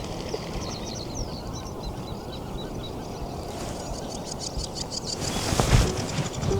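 Wetland birds calling, with a quick run of short high notes in the first few seconds, over a steady rumble of wind on the microphone.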